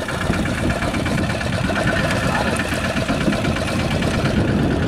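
Fishing boat's engine idling steadily.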